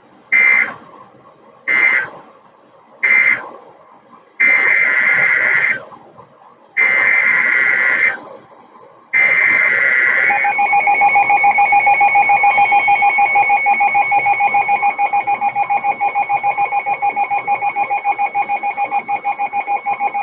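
NOAA Weather Radio Emergency Alert System tones: three short data bursts, the end-of-message code closing the previous warning, then three longer SAME header data bursts announcing the next alert. About ten seconds in, the 1050 Hz warning alarm tone starts, holds steady with a rapid flutter for about ten seconds, and cuts off.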